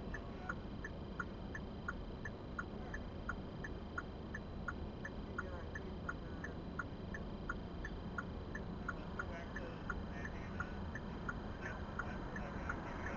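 Car turn-signal indicator clicking steadily, about three clicks a second, over the low hum of the car inside the cabin.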